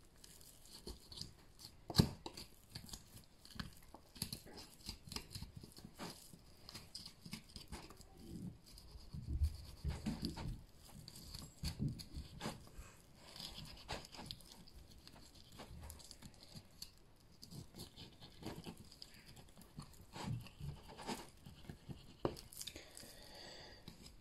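Knife cutting through raw lamb leg meat around the bone: soft, irregular tearing and scraping of flesh and sinew with small clicks, and a sharper knock about two seconds in. Faint throughout.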